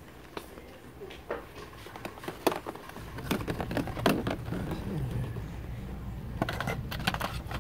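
Scattered sharp clicks and knocks of blister-packed plastic toy figures being handled on metal peg hooks, over a low rumble that starts about three seconds in.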